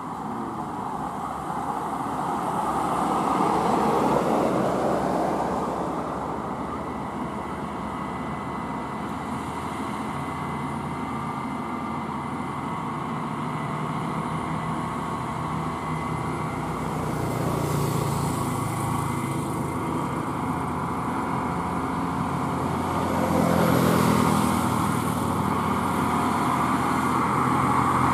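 Diesel engines of heavily loaded UD Quester trucks labouring slowly uphill, a continuous engine drone that swells as each truck draws near, loudest around four seconds in, again about two-thirds of the way through, and near the end.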